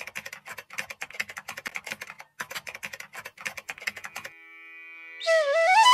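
Keyboard typing sound effect: rapid key clicks, several a second, that stop about four seconds in. About a second later, background music starts on a pitched, flute-like line that glides up in pitch.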